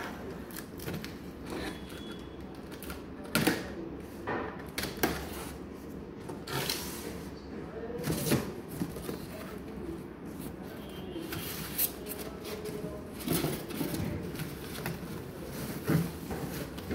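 Box cutter slitting packing tape and cardboard on a carton, with irregular scraping, clicks and knocks as the box is handled.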